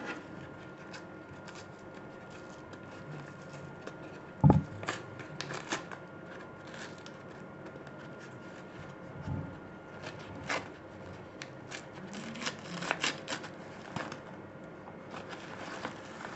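Packaging of a DDR2 RAM module being handled and opened by hand: scattered clicks and crackles, with one sharp knock about four and a half seconds in.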